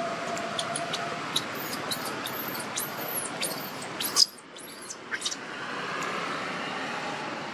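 Newborn monkey crying: a rapid run of shrill, very high squeals, each rising and falling in pitch, about three a second for a few seconds. A steady hiss lies underneath and drops away abruptly partway through.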